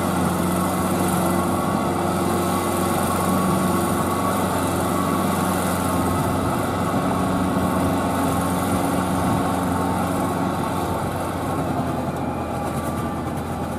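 Kubota L4508VN four-wheel-drive tractor's diesel engine running steadily as it pulls a rotary tiller through a flooded rice field, growing slightly fainter near the end.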